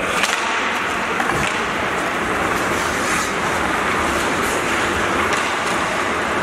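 Ice hockey play: skate blades scraping and carving on the rink ice as a steady hiss, with a few sharp clacks of sticks on the puck and on each other, the first right after the faceoff.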